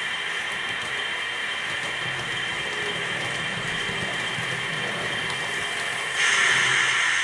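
Märklin H0 model trains running on the layout: a steady mechanical whir of model motors and wheels on track. About six seconds in, a louder hiss starts abruptly and lasts a little over a second.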